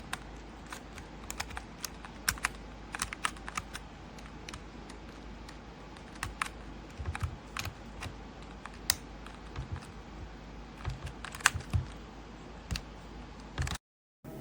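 Scattered, irregular clicks of mechanical keyboard keys being pressed over a steady background hiss; the sound cuts off abruptly near the end.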